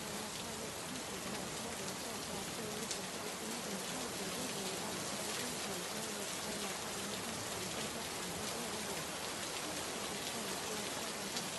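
Steady rain noise laid down as a masking track, with a faint voice speaking indistinctly beneath it.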